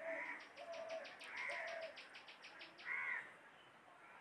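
Faint bird calls, three of them about a second and a half apart, over a rapid high ticking that stops about halfway through.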